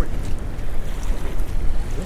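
Wind buffeting the microphone in an uneven low rumble, over sea water washing against a small boat.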